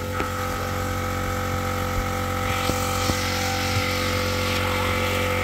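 Air compressor running with a steady hum while an engine cleaning gun sprays a soapy-water mist into a car's AC ducting, its air hissing for about two seconds in the middle.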